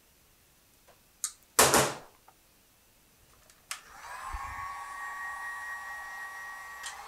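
A click, then a short loud clatter of hand tools on a metal bench top, about a second and a half in. From about four seconds in, an electric heat gun clicks on and runs with a steady fan whine, heating shrink tubing on a crimped spade connector.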